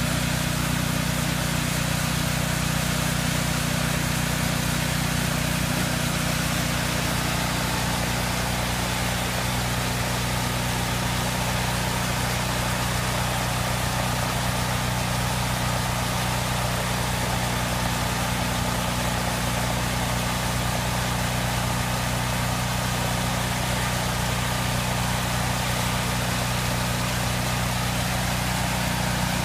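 Sawmill engine running at a steady speed, an even, unchanging engine note.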